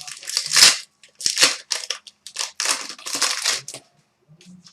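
Trading card packaging, a foil pack wrapper or the cards themselves, being crinkled and handled in a series of short, irregular rustling bursts.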